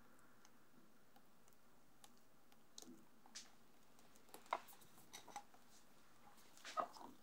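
Near silence broken by faint, scattered small clicks and ticks as strawberry puree is poured in a thin stream into a glass bowl of whipped cream, the two loudest about halfway through and near the end.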